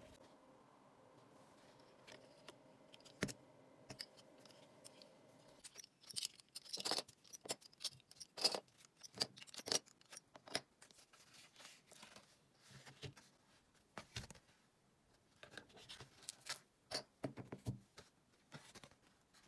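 Leather being pressed and handled, with irregular sharp clicks and rustles from about six seconds in as steel binder clips are worked on the edges of the moulded leather. A faint steady hum under the first few seconds stops about six seconds in.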